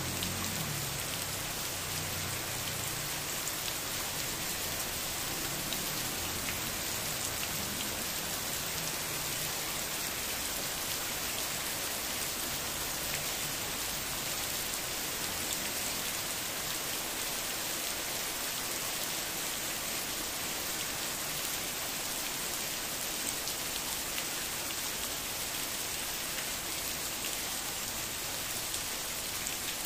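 Heavy rain falling steadily on soil, grass and wet paving, with water pouring off a roof edge. A dense, even hiss with no thunder.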